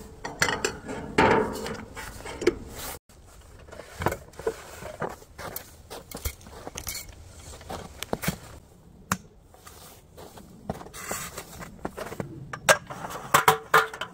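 Handling knocks and clicks of camp gear: a cup set down on a metal tailgate shelf, then a folding aluminium camp table's frame being opened out and its slatted top laid on, with the loudest clatter near the end.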